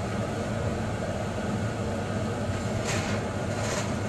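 Steady low appliance hum, with two short scraping, rustling noises near the end as a metal baking tray and wire rack are handled.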